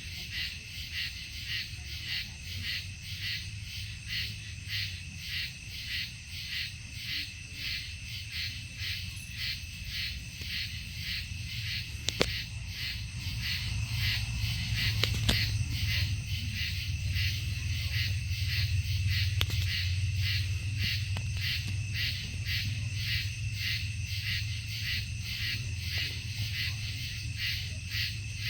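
Night insects chirping in a steady, even rhythm, about two to three pulses a second, with a low hum that grows louder about halfway through and a few faint clicks.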